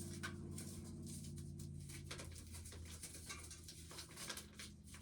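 Faint steady low hum that fades out a little over two seconds in, with scattered light clicks and taps.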